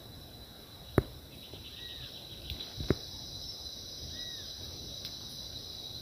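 Steady high-pitched insect drone in brushy woodland, with a short rising-and-falling bird note twice. Two sharp clicks, about one and three seconds in.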